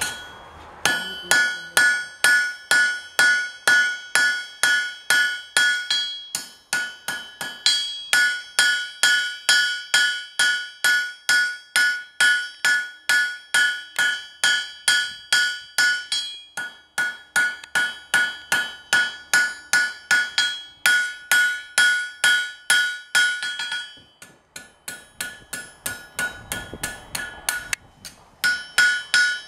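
Blacksmith's hand hammer striking a hot metal rod on an anvil to flatten and taper its end, a steady run of blows about two to three a second, each ringing. The blows stop briefly a few times and fall lighter for a few seconds near the end.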